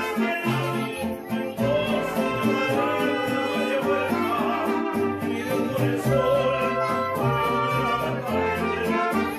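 Mariachi band playing live, with violin, vihuela and guitarrón over a rhythmic bass line.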